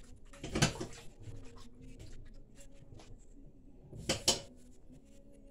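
Heating pipes knocking as the heat comes up: scattered sharp knocks, with two louder ones about half a second in and around four seconds.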